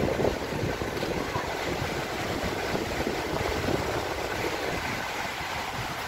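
Steady rush of a shallow mountain river running over stones, under a low, uneven rumble.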